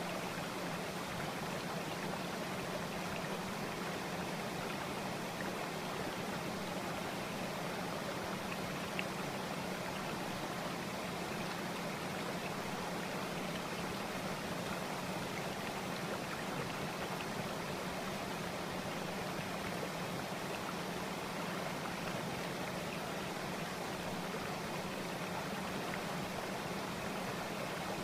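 Steady running-water sound like a flowing stream: an even, unbroken rush with a low hum beneath it that does not change throughout.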